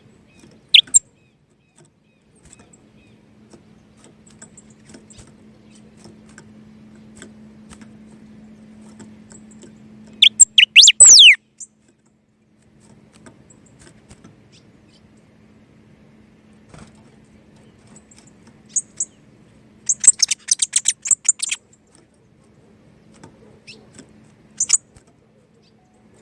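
A songbird gives scattered loud chirps and short bursts of song: a quick run of falling whistles about ten seconds in and a fast trill around twenty seconds in. A faint steady low hum lies underneath.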